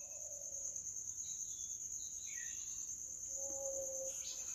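Faint, steady high-pitched trill of a cricket, unbroken throughout. A few fainter short chirps and a brief low tone come partway through.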